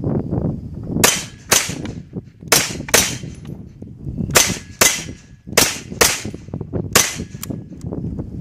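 GSG MP40 9mm blowback semi-automatic pistol firing nine shots in quick succession, mostly in pairs about half a second apart, with wind buffeting the microphone throughout.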